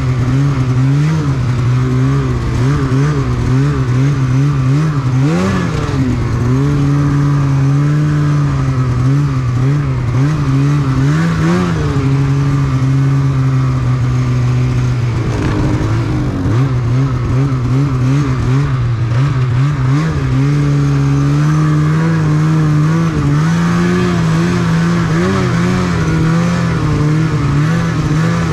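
Snowmobile engine running as the sled rides along a trail, its pitch wavering up and down with the throttle. It swells briefly twice, about five and eleven seconds in, and runs steadier near the end.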